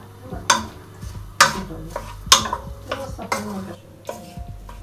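Wooden spoon stirring chicken and onions in a stainless-steel pot, knocking against the pot about once a second, four sharp knocks with a short metallic ring after each.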